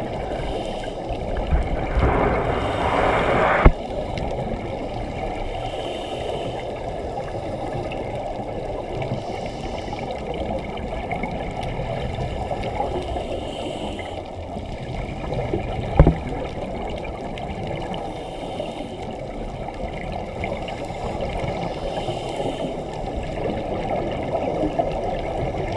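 Underwater sound through a camera housing: a steady low rush of water, with a louder surge of scuba exhaust bubbles about two seconds in. Two sharp knocks on the housing, one near four seconds and one about sixteen seconds in.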